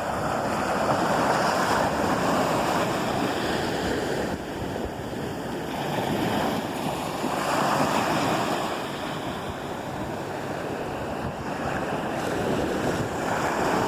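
Ocean surf washing on the shore, a steady rush that swells and eases every several seconds as waves come in.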